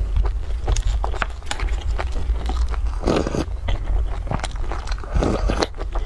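Close-miked chewing of a soft steamed stuffed bun, full of quick wet mouth clicks and smacks, with two longer, noisier spells of chewing about three and five seconds in. A steady low hum runs underneath.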